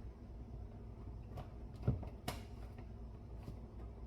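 A few faint light knocks and clicks of kitchen items being handled, the clearest a small knock about two seconds in, over a low steady room hum.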